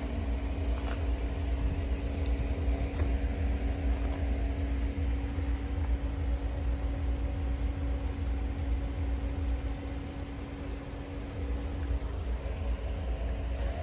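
Diesel train engine idling steadily: a constant low rumble with a steady hum over it.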